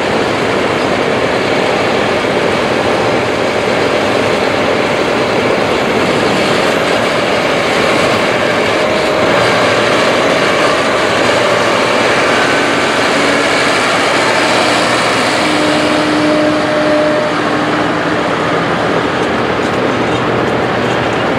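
Large corn-harvest machinery running steadily: a loud, dense, even mechanical rush, with faint held tones coming and going around the middle.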